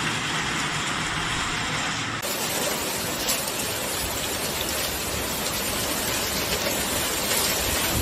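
Heavy rain pouring down in a thunderstorm, a steady dense hiss of rain; the sound turns a little brighter about two seconds in.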